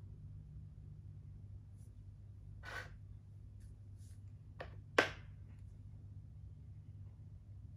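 A sharp click about five seconds in, just after a smaller one: a plastic makruk piece set down on the board. A soft breath-like hiss comes earlier, over a faint low hum.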